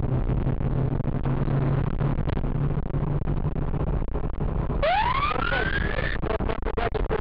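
Engine and road noise inside a police patrol car, then about five seconds in the car's siren switches on, its wail rising in pitch for over a second before breaking into a fast pulsing.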